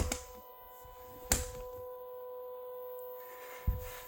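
A sharp knock about a second in and a dull thump near the end, over a steady faint high-pitched hum.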